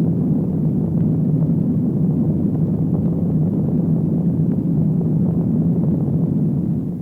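Loud, harsh electronic drone from the film's opening title sting: a steady low rumbling tone that begins abruptly and fades away near the end.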